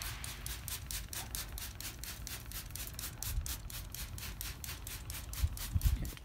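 Hand trigger spray bottle squeezed rapidly, a short hissing spritz about five times a second, misting water or apple juice over ribs on the smoker. A few low thumps come near the end.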